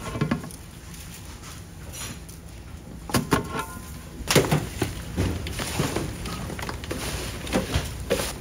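Cut cutlassfish pieces being salted and tossed by gloved hands in a large steel basin: a few sharp knocks and clatters, then busier irregular knocking and rustling as the pieces are mixed.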